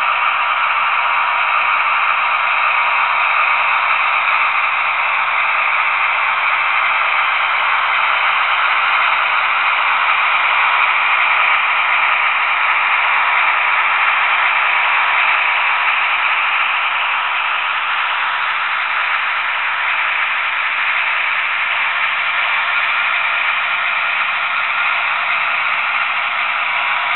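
HO-scale Trix DB V 100 model diesel locomotive with a DCC sound decoder running past with a train of hopper wagons: a steady hissing run of engine sound from its small onboard speaker mixed with the rolling rattle of the model wheels on the rails. It drops a little in level once the locomotive has passed and the wagons roll by.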